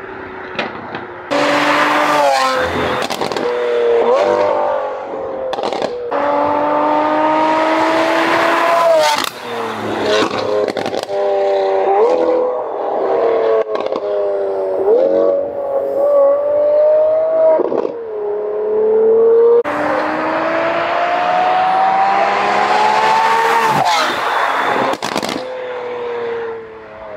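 Lamborghini Aventador SVJ's naturally aspirated V12, breathing through a Valvetronic Designs equal-length titanium race exhaust, passes by while accelerating hard through the gears. The engine note climbs with each pull and drops sharply at every upshift, with sharp exhaust cracks between pulls.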